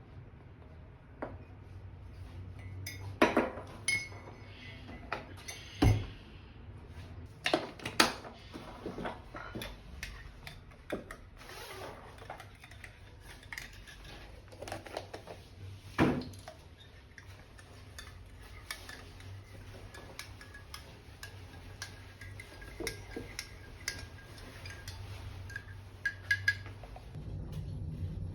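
Dishes and cutlery clinking and clattering as they are handled, with several louder knocks of crockery.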